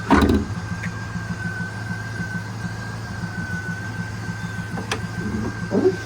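A 1998 Pontiac Trans Am's V8 engine idling with an even, fast pulse, a thin steady high whine over it. A sharp click comes about five seconds in.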